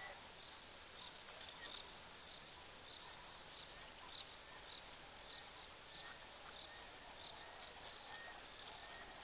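Faint outdoor bush ambience over a steady hiss, with a bird's short high chirps repeating about twice a second and a few other scattered bird notes.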